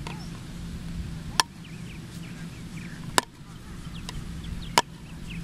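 Golf club striking golf balls on grass: four sharp clicks about one and a half seconds apart, with birds chirping faintly in the background.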